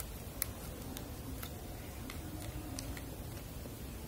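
A few faint, sharp plastic clicks from a memory card being pushed into the battery and card compartment of a Sony DSC-W830 compact camera, over a low steady hum.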